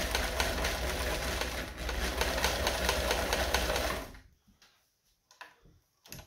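Kenmore 158 sewing machine sewing a close zigzag (satin stitch), running steadily with rapid even needle strokes, then stopping about four seconds in. A few faint clicks follow as the fabric is handled.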